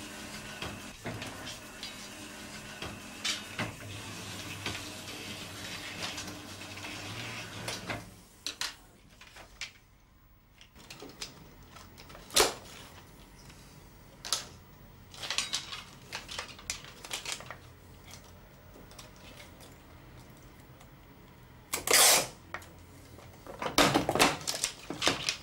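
A flatbed film editing table runs with a steady hum for about eight seconds, then stops. After that come scattered sharp clicks and clacks of film being handled and cut on a film splicer, the loudest about 22 seconds in.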